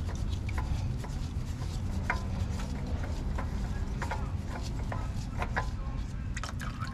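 A spin-on oil filter being twisted off by a gloved hand under a small truck: rubbing and scattered small clicks as it turns loose on its thread, over a low steady background noise.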